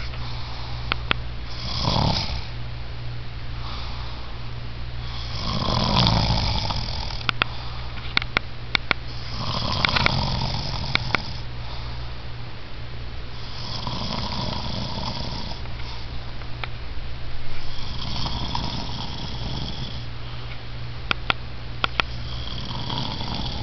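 A man snoring in his sleep, one snore about every four seconds, with short sharp clicks between some of the snores.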